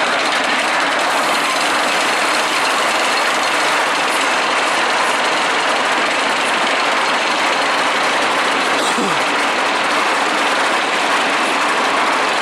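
Storm Chaser steel roller coaster train running along its track, a steady loud rushing noise.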